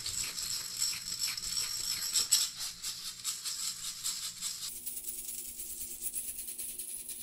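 BBs rattling rapidly inside a glass soda bottle of soapy water as it is shaken hard, the shot scouring stuck-on dirt from the inside of the glass. The rattle's sound changes abruptly near five seconds in.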